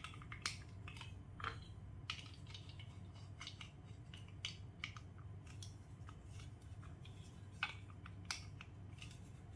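Plastic Lego Duplo bricks being handled and pressed together, a scatter of light clicks and taps over a faint low hum.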